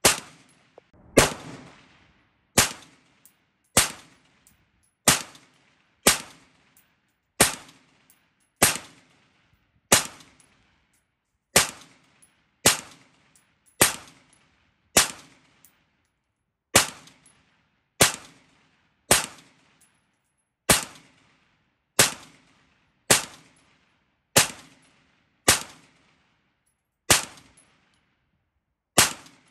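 Windham Weaponry 20-inch government rifle, an M16A4-pattern AR-15 in 5.56 mm, fired semi-automatically in steady slow fire: about two dozen sharp shots, roughly one a second, each trailing off in a short echo.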